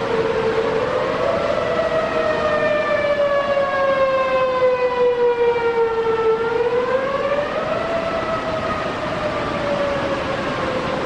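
Siren wailing with a slow rise and fall, its pitch sliding down over several seconds, climbing again past the middle, then sinking once more, over a steady background noise.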